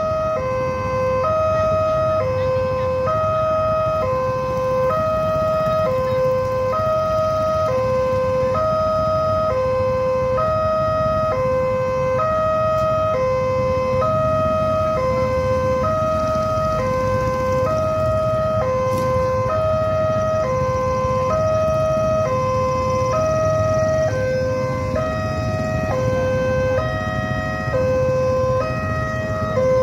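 Railway level-crossing warning alarm sounding while the barriers are down. It is an electronic two-tone signal alternating a high and a low note, about one full cycle a second. A low rumble of waiting motorcycles lies underneath.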